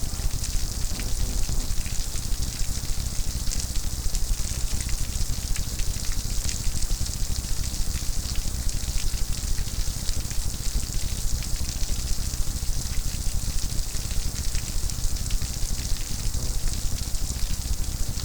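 Steady rain: a dense, even hiss of many small drop ticks, with a steady low rumble underneath.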